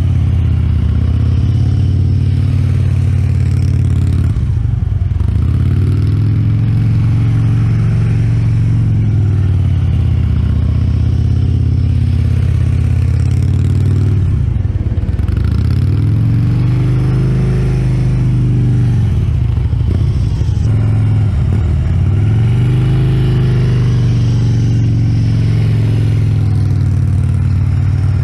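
Large touring cruiser motorcycle running slowly in first gear through tight figure-eight turns. Its low engine note holds steady, with several brief dips in pitch that recover.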